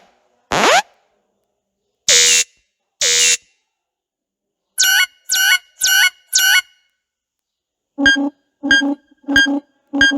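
A run of short cartoon sound effects with silence between them: a quick rising sweep near the start, two short hissy blasts about a second apart, four quick pitched chirps that bend at their ends, then four short buzzy beeps.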